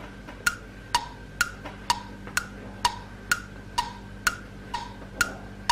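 Steady wood-block ticking, about two clicks a second, alternating between a higher and a lower tone like a clock's tick-tock, used as a waiting or thinking track.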